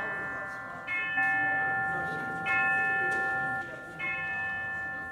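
Bell-like chimes playing a slow sequence of notes, a new note struck about every second or second and a half, each ringing on into the next.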